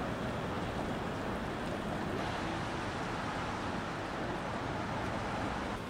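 Steady outdoor city street ambience: an even wash of noise such as distant traffic, with no distinct events.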